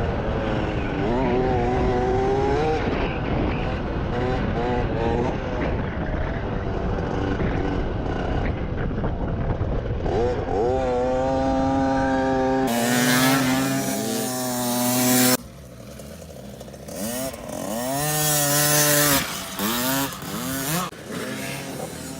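Dirt bike engine revving up and down as it is ridden, its pitch rising and falling every second or two, with gusts of wind hiss over it. The sound cuts off abruptly about 15 seconds in and resumes at a lower level with more revs.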